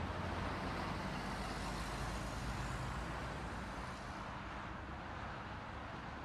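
Steady low rumble of idling engines and traffic noise, picked up by a dashcam's microphone inside a car stopped in a traffic queue.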